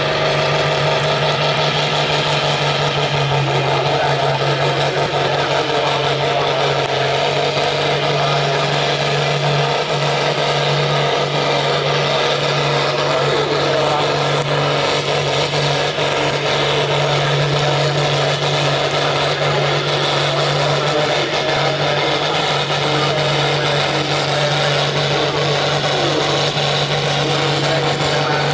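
Deutz 8006 tractor's air-cooled six-cylinder diesel running flat out under full load as it drags a weight-transfer sled, holding a steady pitch the whole pull.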